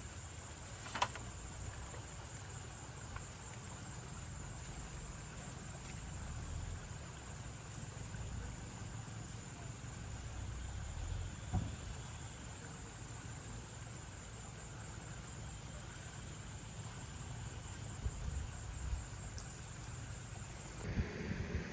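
Insects trilling steadily in one high, continuous tone over a low rumble, with a sharp click about a second in.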